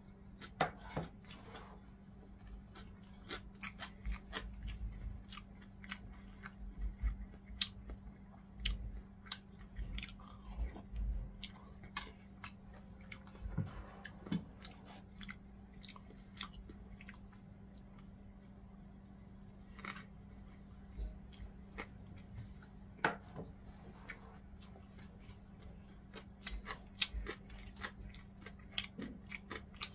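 Close-miked chewing of food, with wet mouth clicks and smacks coming irregularly in clusters, over a steady low hum.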